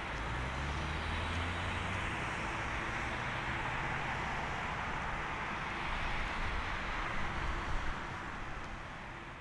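Distant roar of a Boeing 747-400F freighter's four jet engines as it rolls out on the runway after landing: a steady rushing sound with a low rumble beneath, easing off slightly near the end.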